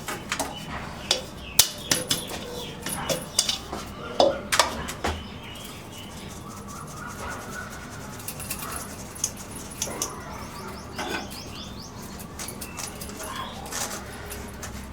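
Ground spice powder being sifted through a sieve: a string of sharp taps and clinks over the first few seconds, then quieter shaking and rustling.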